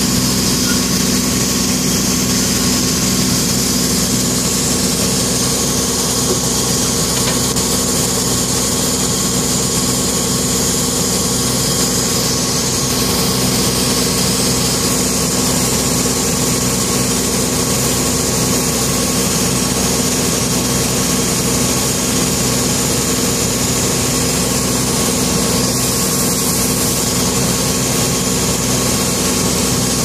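Steady, unbroken drone of heavy machinery: a Nippon DHP80 pile driver rig and an Ingersoll Rand portable air compressor running together, with no separate hammer blows.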